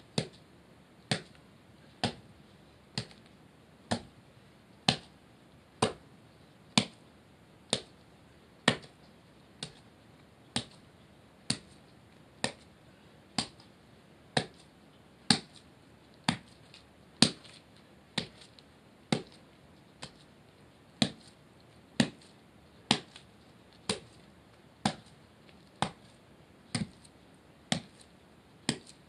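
Wooden kine mallet pounding steamed glutinous rice into mochi in a wooden usu mortar: steady thuds about once a second, some harder than others.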